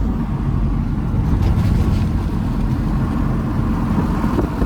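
Steady rumble of a vehicle on the move, with wind noise.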